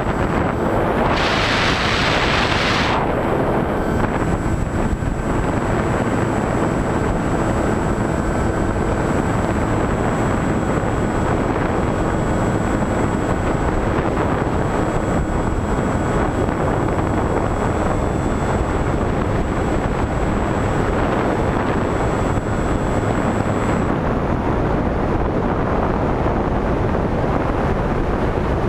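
Onboard sound of a Skywalker 1900 electric RC motor glider in flight: a steady rush of wind over the airframe and microphone, mixed with the drone of its electric motor and propeller, with a faint steady whine over it. The air rush swells to a brighter hiss about a second in, then settles.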